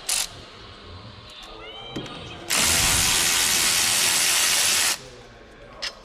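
A power tool runs in one steady, hissing burst of about two and a half seconds, typical of a powered ratchet or wrench undoing the brake caliper bolts. Light clicks and knocks of the tools come before and after it.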